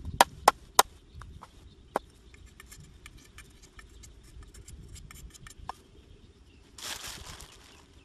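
Cleaver chopping thin bamboo sticks on a wooden block: three sharp chops in quick succession, then a fourth about two seconds in, followed by light ticking as the bamboo is whittled by hand. A brief rustle near the end.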